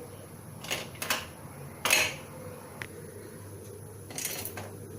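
A few short clatters and scrapes of ingredients and utensils being handled at a cooking pot as spices are added to it, the loudest about two seconds in.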